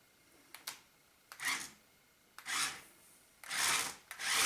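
Small electric drive motors of a toy RC stunt car whirring in short bursts as the transmitter sticks are pushed, the wheels spinning freely off the ground. A few clicks come first, then the bursts grow longer and louder, the loudest near the end.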